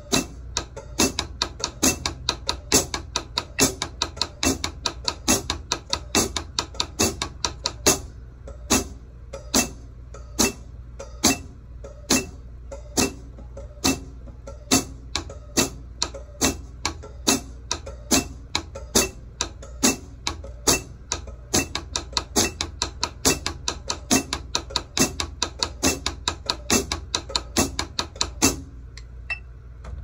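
Drumsticks playing double strokes on a rubber practice pad over a snare drum, stepping through quarter-, eighth- and sixteenth-note subdivisions at 70 beats per minute against a metronome click. The strokes come in even groups and stop shortly before the end.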